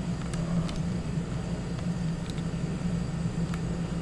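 Steady low background hum with a few faint, light clicks of a small Phillips screwdriver turning out the tiny screws of a laptop screen panel.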